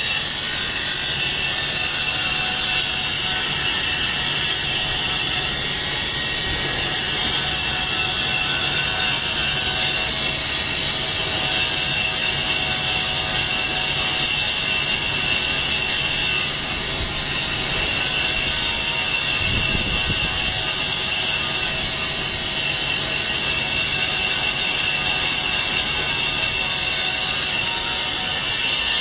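Vertical foam-cutting band saw running steadily, a constant high whirring hiss over its electric motor's hum, as sheets of foam are fed through the blade. A brief low thump about two-thirds of the way through.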